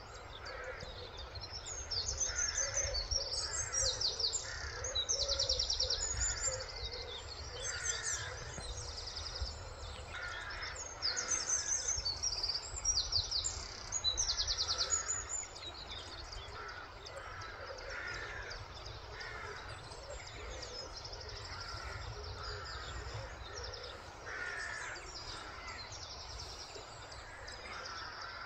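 Birds singing at dawn: many high chirps and rapid trills, with repeated lower calls, over a steady low rumble.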